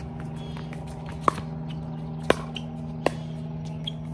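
Pickleball rally: sharp pops of paddles striking a plastic pickleball. Three loud hits come about a second apart, starting a little over a second in, followed by a fainter one. A steady low hum runs underneath.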